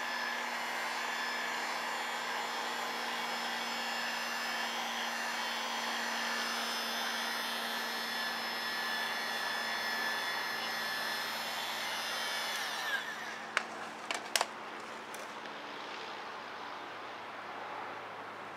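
Electric heat gun blowing steadily with a high whine, warming the freshly applied headlight protection film. It is switched off about 13 seconds in and winds down, followed by a few sharp clicks.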